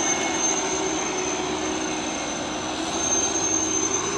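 Heavy diesel truck engines running on the road, a steady dense mechanical noise with a thin, steady high-pitched tone over it.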